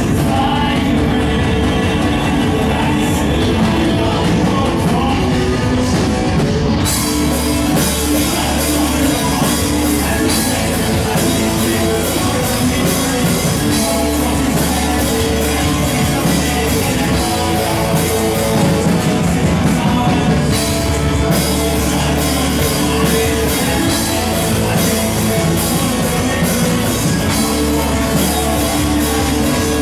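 Loud live rock-style music over a venue's sound system, with the performer's voice on a microphone. About seven seconds in the sound turns brighter and fuller, with a short break a little past twenty seconds.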